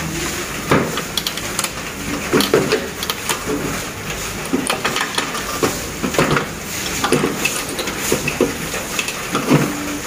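Irregular clicks, knocks and rattles of plastic and metal as the evaporator coil of a split air conditioner's indoor unit is worked out of its plastic housing and clips by hand. The coil is stiff to free.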